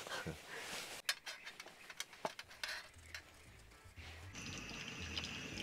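Kitchen knife cutting on a wooden cutting board, giving scattered sharp knocks and clicks, with short scrapes of a vegetable peeler on a potato. About four seconds in these stop and a steady, fainter background with high sustained tones takes over.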